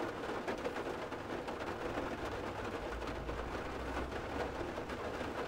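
Light rain drizzling on the roof of a Ford F-150 pickup, heard from inside the cab as a steady patter of drops. A low rumble joins briefly about three seconds in.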